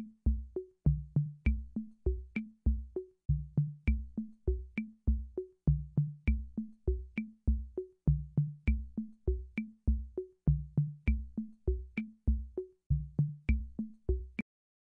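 Electronic drum-machine beat: a looping pattern of deep kick-drum hits and pitched tom-like hits with a short click on top, at an even tempo, cutting off suddenly near the end.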